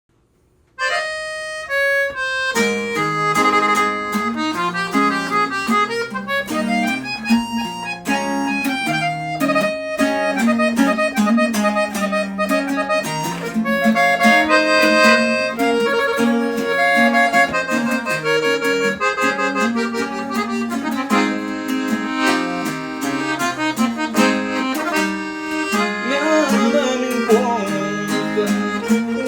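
Norteño-style music: an accordion playing the melody over a strummed bajo sexto, starting about a second in.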